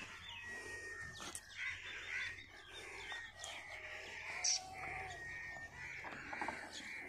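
Crows cawing again and again in short harsh calls, with thinner chirps of other birds among them.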